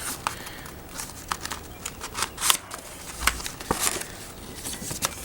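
Packaging rustling and crinkling in a string of short crackles as a paper or plastic pack is handled and opened.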